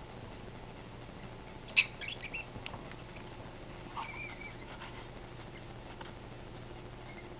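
Cockatiel in a cage making short, odd chirps and clicks: the loudest and sharpest about two seconds in, a few softer ones just after, and a brief warble about four seconds in.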